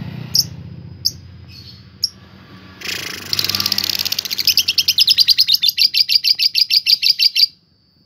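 Fischer's lovebird giving a few single sharp chirps ("ngetik"). About three seconds in it breaks into a long, fast chatter of repeated notes, about seven a second ("ngekek"), which stops abruptly near the end.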